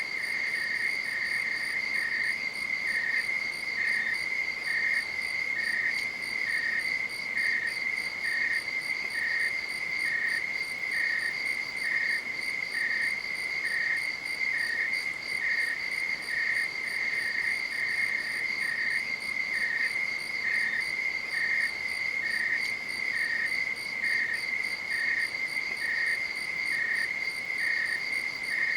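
Night insects calling: one steady, unbroken high trill, with a second insect chirping just below it in an even rhythm of about one and a half chirps a second.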